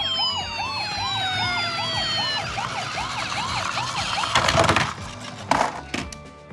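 Toy ambulance's electronic siren sounding in a fast rising-and-falling warble, about three cycles a second, drifting slowly lower in pitch. Near the end it gives way to two short bursts of clattering noise.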